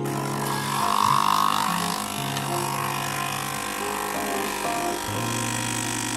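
Nespresso capsule machine's pump buzzing steadily with a hissing rush as it brews espresso into a glass, over quiet background music.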